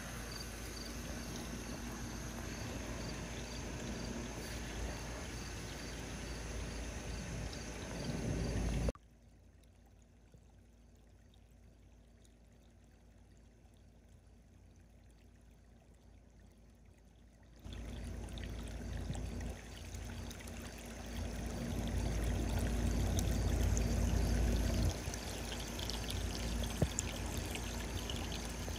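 Water pouring and trickling steadily into a pond. About nine seconds in, it cuts out to a faint hiss for roughly eight seconds, then comes back suddenly and grows louder for a few seconds before easing again.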